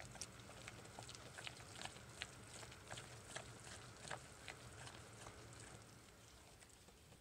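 Spatula stirring thick hot-process soap batter in a crock: faint, irregular little clicks and knocks, about two or three a second, as the spatula works the batter against the crock.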